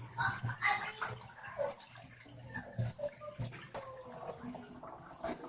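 Dirty wash water draining out of a Giantex twin-tub portable washing machine's wash tub at the end of the wash cycle.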